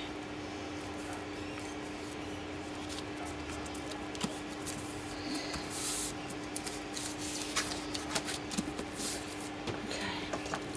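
Hands rubbing and smoothing a freshly glued paper cover flat against its card backing, with soft paper rustles and a few light taps and handling noises, more of them in the second half. A steady faint hum runs underneath.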